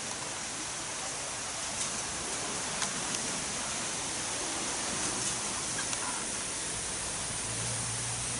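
Steady broadband outdoor background hiss with a few faint clicks and no bird calls. A low steady hum comes in near the end.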